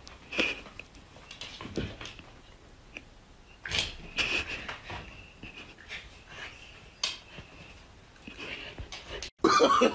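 A handful of short, faint snuffs and rustles from a cat and a Samoyed dog at close quarters, the cat pawing at the dog's face, in a quiet small room.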